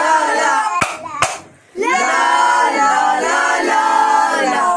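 Male voices singing unaccompanied in long, held, gliding notes, with two sharp hand claps about a second in and a brief break before the next sung phrase.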